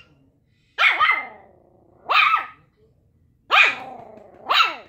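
Puppy barking: four high-pitched barks about a second apart, each dropping in pitch.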